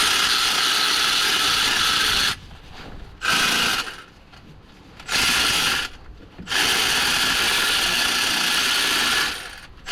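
Cordless power tool running in four short bursts, the longest about three seconds, undoing the fasteners of the front wheel arch liner.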